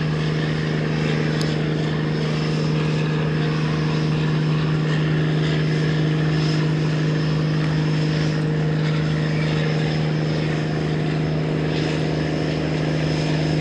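Tugboat diesel engine running steadily under load as it tows barges, an even deep hum with a strong low note.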